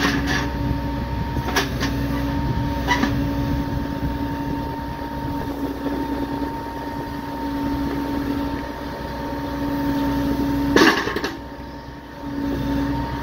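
Grapple truck running with a steady hydraulic hum as the grapple is worked, with a few clicks early on and a loud metallic knock about eleven seconds in, where the hum briefly drops out.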